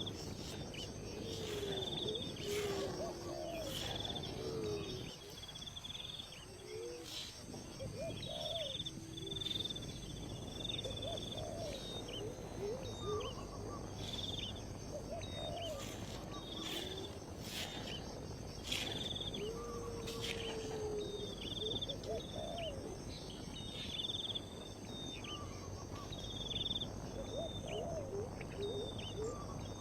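Wild bird calls: short high notes repeated roughly once a second, with lower, gliding calls between them, over a steady high-pitched drone of insects and occasional sharp clicks.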